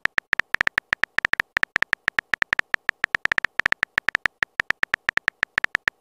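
Simulated phone keyboard typing sounds from a texting-story app: rapid short clicks, about seven a second, as a text message is typed out letter by letter.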